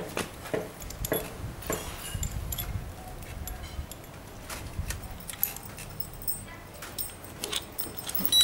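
Keys and a metal alarm padlock clicking and rattling as the lock is handled and turned over, ending in one short high beep as the alarm arms.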